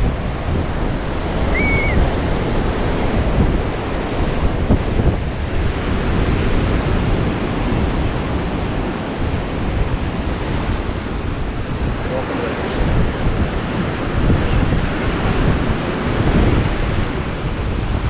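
Black Sea surf washing onto a sandy beach, with strong wind buffeting the microphone in a steady rushing roar that swells and eases.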